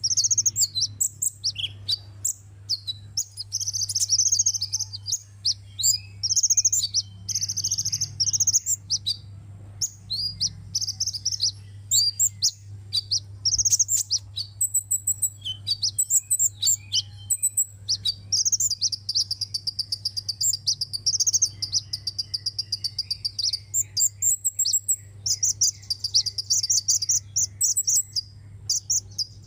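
Sunbird song: rapid, high-pitched twittering and fast trilled phrases, repeated in bursts one after another, over a steady low hum.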